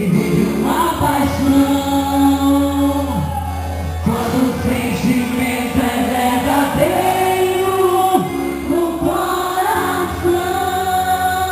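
Music with singing: a held, sustained vocal melody over steady low accompaniment.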